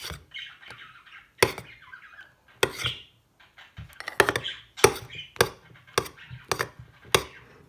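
A metal spoon stirring slime with shaving foam in a bowl: about eight sharp knocks of the spoon against the bowl, with soft squishing of the foamy mix between them.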